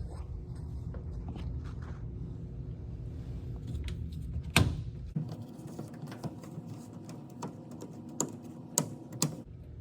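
Hands working a rubber washer door gasket onto its lip, with scattered sharp clicks and taps, several close together near the end. A low steady hum stops about halfway through.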